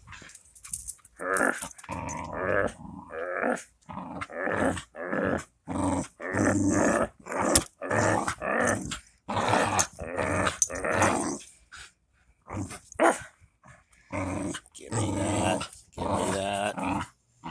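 Dog growling in play while tugging on a rope toy: a long run of short growls, each half a second to a second long, with brief gaps between them.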